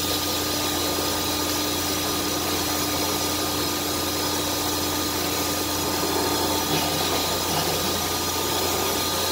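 CNC router running: a steady machine hum and hiss with a constant high whine. A lower tone drops out about seven seconds in.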